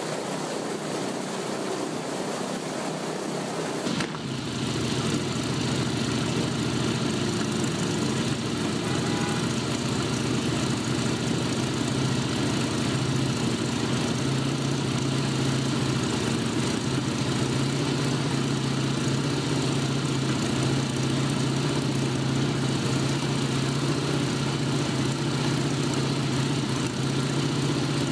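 Radial engine with a propeller, mounted on the back of a Volkswagen Beetle, idling steadily. For the first few seconds a propeller-driven radial aircraft engine on a test stand is running instead, cut off abruptly about four seconds in.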